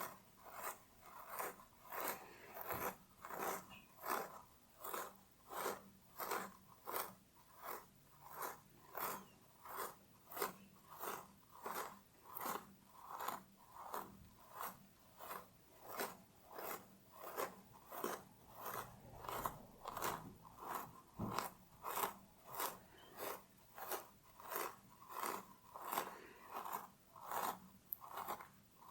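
Fingernails scratching a scalp through the hair in even, repeated strokes, about two a second.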